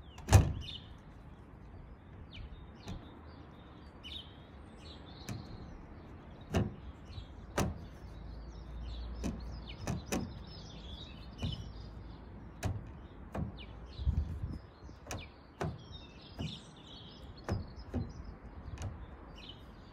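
Irregular sharp knocks and clicks of hand work fitting a roof vent fan into a van roof, about one every second or so, the loudest just after the start. Birds chirp faintly in the background.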